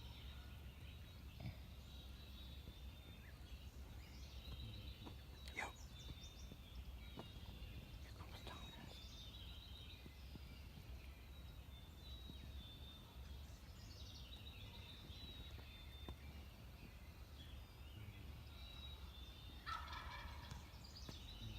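Wild turkey gobbling several times in a rattling, descending call.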